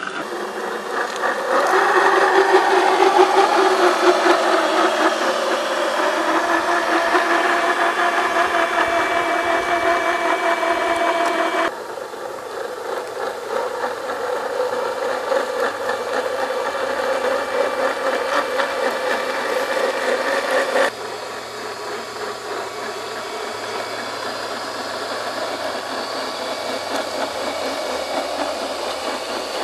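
Whine of a 1/10-scale RC4WD Trail Finder 2 crawler's brushed electric motor and gearbox driving slowly over dirt and rocks. The whine drops in level and changes pitch abruptly about twelve seconds in and again about twenty-one seconds in.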